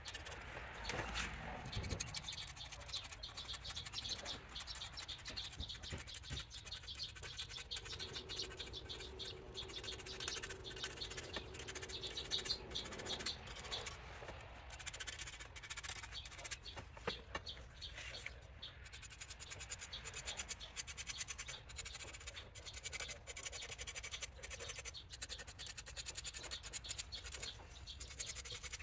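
A hand tool's tip scratching and rubbing along a javelin shaft as thin spiral lines are marked on it, with a few small ticks.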